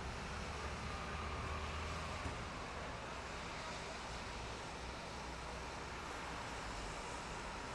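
Heavy rain from a thunderstorm downpour falling steadily, an even hiss, with a low rumble underneath for about the first two seconds.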